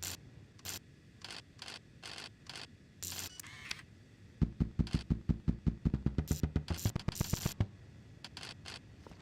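Foley mechanical clicks for a small robot's moving parts: scattered single clicks, then a fast ratcheting run of about ten clicks a second lasting about three seconds, then a few more clicks.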